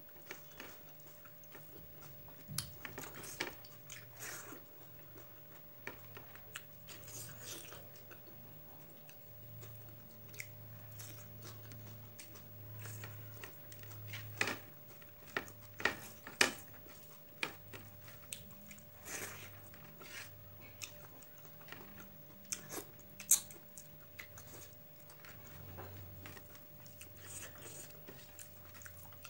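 Close-miked chewing and wet mouth smacks of a person eating rice and beef curry by hand. Short sharp clicks come at irregular intervals, the loudest two about halfway and three quarters of the way through, over a faint steady hum.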